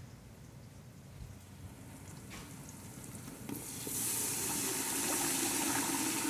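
Water for a red rice sauce starting to pour in a steady rushing stream about three and a half seconds in, after faint sizzling of onions browning in the pot.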